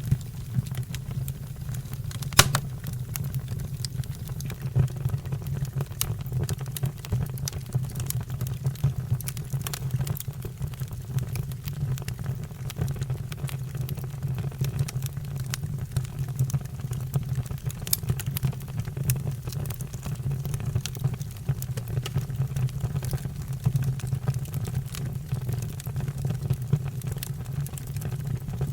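Fire crackling with frequent sharp pops over a steady low rumble; the loudest pop comes about two and a half seconds in.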